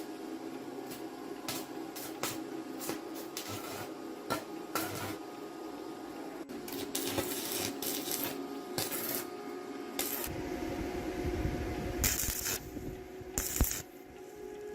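Metal hand tools and parts clinking and scraping during mechanical repair work, with two short hissing bursts near the end.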